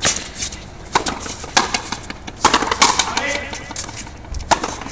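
A frontenis rally: the rubber ball is struck with rackets and hits the frontón wall, giving about six sharp cracks at an uneven pace. A player's voice calls out briefly around the middle.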